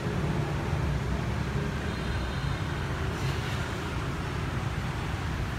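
Steady low vehicle rumble with no distinct events.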